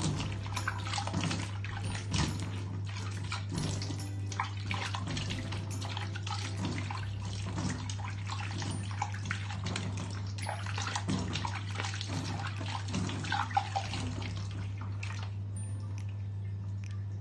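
Water splashing and dripping as a face is rinsed with cupped hands, in irregular splashes that ease off about fifteen seconds in. A steady low hum runs underneath.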